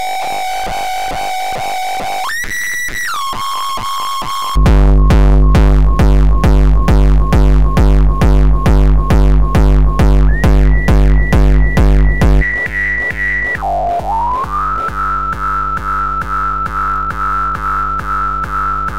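Looped 909 kick drum distorted through FabFilter Volcano 3's resonant filters, repeating about twice a second with a ringing tone on each hit. About four seconds in, a change of filter routing makes it much louder, with a deep booming tail. The ringing pitch then steps up and down, drops back in level, and glides up to settle on a higher tone near the end.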